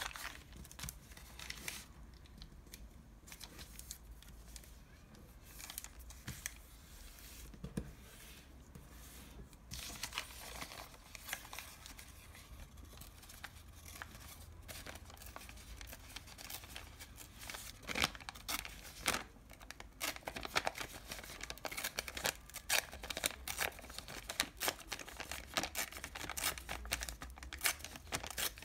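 A thin paper KFC french-fries bag crinkling and crackling as hands fold and crease it, in irregular sharp crackles. The crackles are sparse at first and come thicker and louder in the second half.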